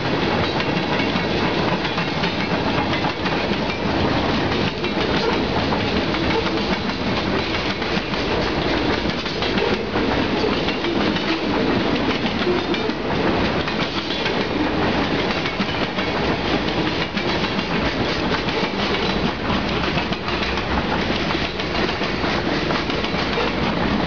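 Freight cars of a passing train (tank cars, boxcars and covered hoppers) rolling by: steel wheels on the rails make a steady rumble and rattle, with many quick clicks throughout.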